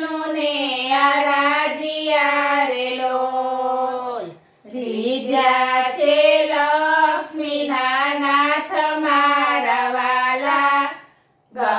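Three women singing a Gujarati bhajan together, unaccompanied, in long held phrases, with a brief pause for breath about four seconds in and again near the end.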